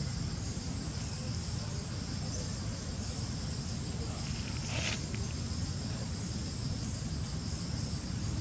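Insects chirping in a steady outdoor chorus, a high pulsing trill about four beats a second that drops out briefly twice, with a short rustle a little past the middle.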